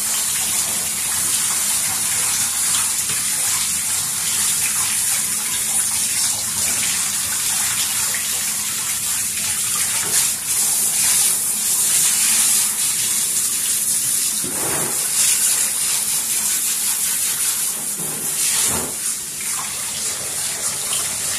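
Handheld shower sprayer rinsing a large dog's wet coat in a bathtub: a steady hiss of running water, briefly louder twice in the later part.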